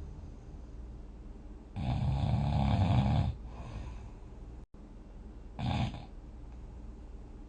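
A person snoring in their sleep: one long snore lasting about a second and a half, starting about two seconds in, then a short, weaker breath sound near six seconds.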